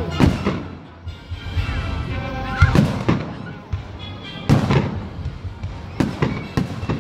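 Aerial firework shells bursting, about six sharp booms spread through the seven seconds, with music playing throughout.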